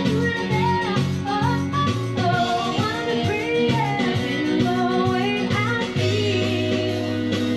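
A woman singing karaoke into a handheld microphone over a backing track with guitar and a steady beat.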